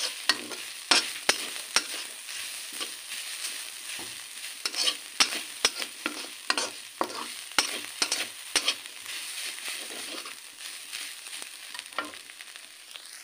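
Steel spatula scraping and tapping against a kadhai in irregular strokes as shredded vegetables are stir-fried, over a steady sizzle of frying.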